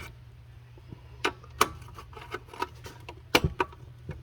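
Scattered sharp clicks and knocks of small hand tools and gauge-panel parts being handled while screws are snugged down, the loudest a quick cluster about three and a half seconds in, over a low steady hum.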